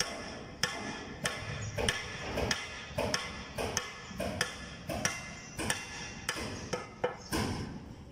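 A hammer drives wooden pegs through a metal die plate (acuan), knocking them round into treenails (pasak) for a traditional wooden boat. The blows are steady, about one every two-thirds of a second, and each one rings briefly.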